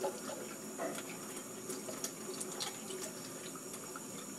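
Water running steadily from a kitchen tap into a sink, with small scattered clicks.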